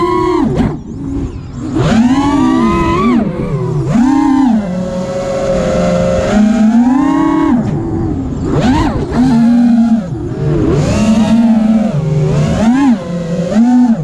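Armattan Rooster FPV racing quadcopter's brushless motors whining, the pitch rising and falling every second or two as the throttle is worked, with brief drops when the throttle is cut.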